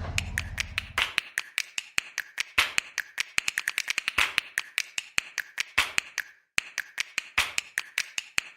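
Rapid, irregular sharp clicks or taps, several a second, after a low rumble that stops about a second in.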